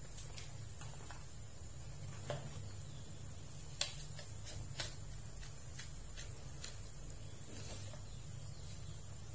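Metal tongs clinking against a ladle and an aluminium wok of simmering squid soup: scattered sharp clinks, the loudest about four and five seconds in, over a steady low hum.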